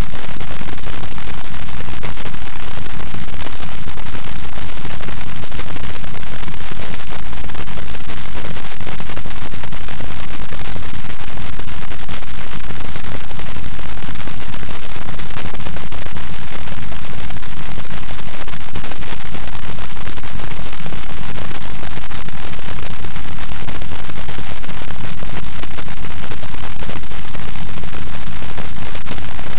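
Loud, constant static noise, a steady hiss across the whole range with nothing else heard over it.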